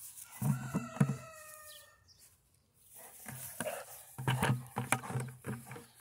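A young pit bull growling in short bursts as he bites and shoves a plastic 5-gallon bucket, with sharp knocks of teeth and plastic. A rooster crows once, more faintly, during the first two seconds.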